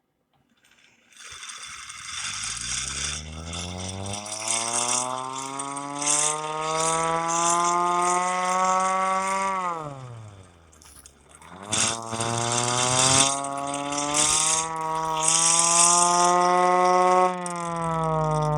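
Hand-crank air raid siren spun up by its crank: a rising wail over a loud clattering rattle from the mechanism. The pitch falls away steeply about ten seconds in, then climbs again as it is cranked back up and held.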